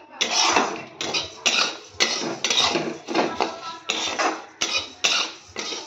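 Flat metal spatula scraping across a metal pan while stirring vermicelli being roasted brown, in short strokes about twice a second.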